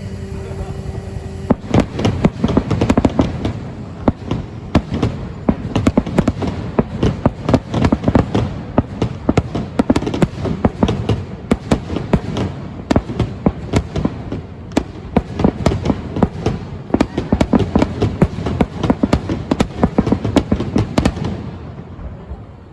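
Aerial fireworks bursting in a rapid barrage, several sharp bangs and crackles a second, starting about a second and a half in and stopping shortly before the end.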